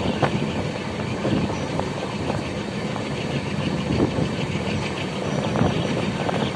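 Jamalpur–Malda Town Intercity Express running at speed, heard from aboard: a steady rumble and rattle of the coaches with irregular clicks of the wheels over the rails.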